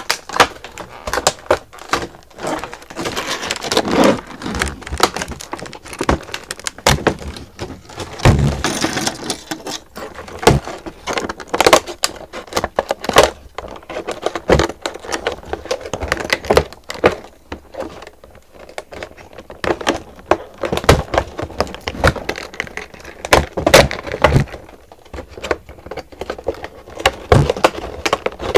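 Plastic toy packaging being handled, cut with scissors and pulled apart: an irregular run of sharp crinkles, crackles and clicks with rustling between.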